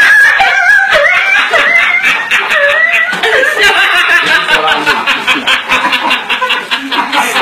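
A man's vocal imitation of a dog yelping in pain after being splashed with hot water: high, wavering yelps for the first three seconds or so, then laughter.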